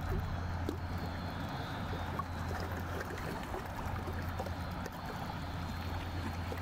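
Steady low drone of a passing inland cargo ship's diesel engine, mixed with the rush and lapping of river water.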